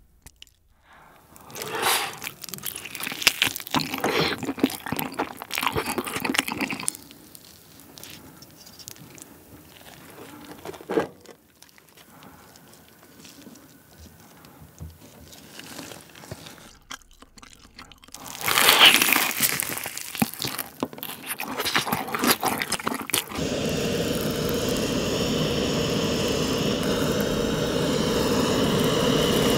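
Melted raclette cheese scraped off the block with a knife onto fried chicken, in two stretches of crunchy scraping. About three-quarters of the way in, a steady sizzle starts from cheese-topped kimchi fried rice on a hot griddle pan.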